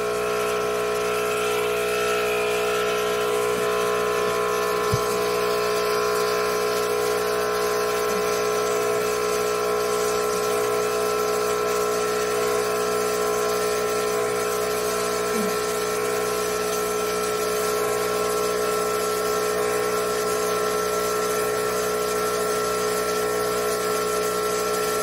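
Hantop portable milking machine's electric vacuum pump running steadily, an even hum made of several held tones.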